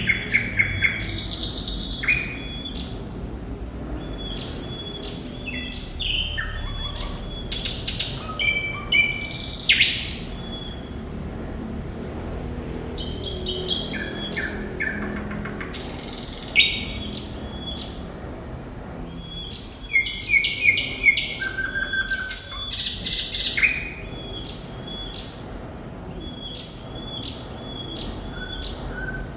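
Thrush nightingale in full, vigorous song: a run of varied phrases made of rapidly repeated sharp notes, clicks, rattles and clear whistles, separated by short pauses.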